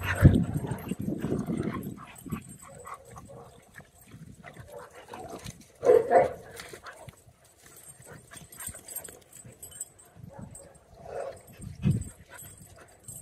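Dogs in a group, with two short barks about six seconds in and a few shorter dog sounds near the end.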